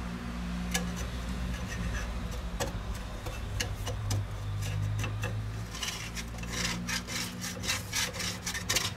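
Plastic spatula scraping and tapping in a frying pan, working under a thin spring-roll wrapper that is stuck to the pan, with the scrapes coming thicker after about six seconds. The batter sheet is sticking and tearing instead of lifting off.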